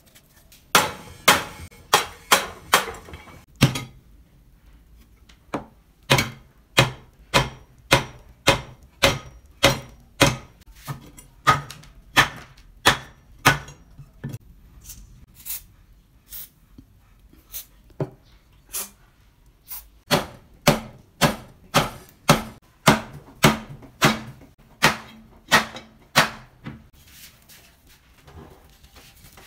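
Repeated hammer blows on the rusty drill press, knocking at seized parts to free the chuck. The sharp strikes come about two a second in several runs, with short pauses between them.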